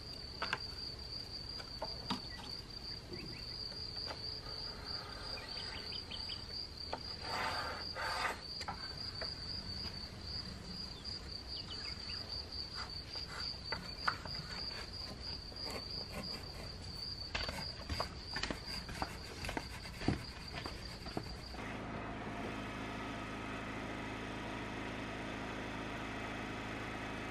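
A cricket trilling steadily on one high pitch, with scattered faint taps and scrapes. About three-quarters of the way through it cuts off suddenly and a portable petrol generator's steady running hum takes over.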